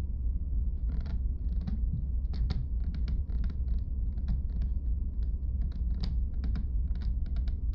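A steady low rumbling drone under a string of irregular faint clicks and creaks that begins about a second in.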